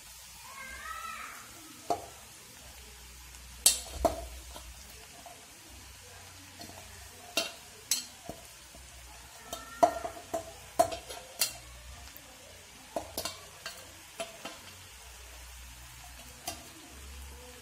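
Puffed rice being stirred into fried onion and tomato in a non-stick frying pan: a light sizzle, with a dozen or so scattered sharp taps and scrapes of a spoon against the pan.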